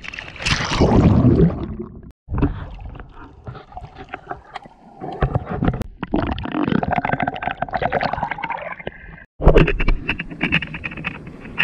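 Water sloshing and gurgling around a waterproof action camera as it dips at the surface and then films under water, with muffled bubbling and clicks. There are two abrupt cuts, and the last part is noisier.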